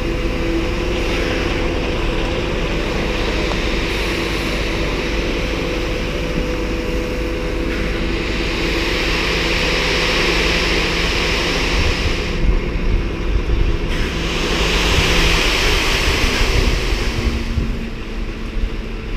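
Scania R730's V8 diesel engine running steadily, with a rushing noise that swells twice, around the middle and again later.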